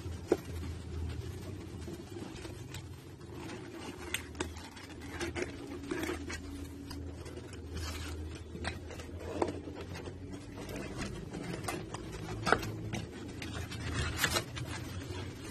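Cardboard packaging being handled: a retail box scraping and tapping against its cardboard shipping carton, with irregular rustles and knocks, a few sharper ones near the start and about twelve seconds in.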